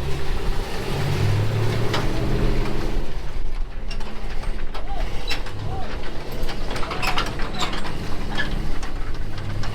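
Vehicle engine running and revving up and down, as a stuck vehicle is pulled out of mud with a tow strap, with scattered clicks and knocks.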